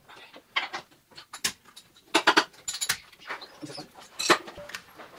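A flat-blade screwdriver scraping and clicking against a CV axle's joint and rubber boot as the boot is pried off: a run of short, irregular scrapes and clicks.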